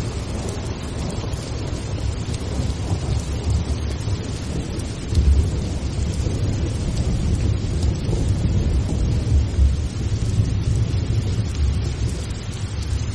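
Steady rain with a continuous low rumble of thunder, swelling about five seconds in and again near ten seconds.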